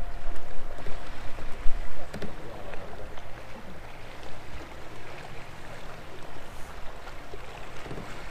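Water washing and lapping against a slow-moving bass boat's hull, with a low rumble that is loudest in the first two seconds and then settles.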